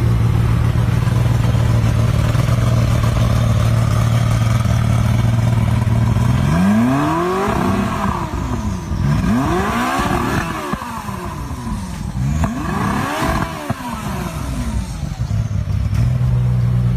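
Czinger 21C hypercar's 2.8-litre V8 idling steadily, then revved three times, each rev climbing and falling back, before it settles back to idle near the end.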